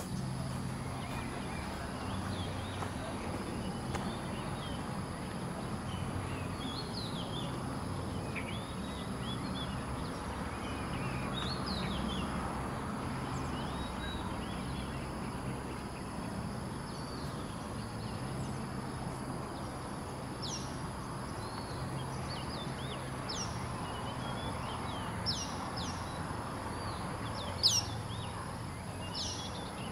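Wild birds chirping, with short high calls scattered throughout and more of them in the second half, over a steady high-pitched insect drone and a low hum.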